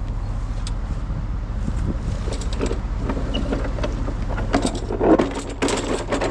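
A vehicle engine idles with a steady low hum, and a few clunks and rattles come about two-thirds of the way through.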